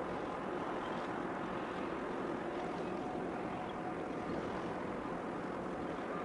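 Steady wind and sea noise at the shoreline, with a faint steady hum underneath.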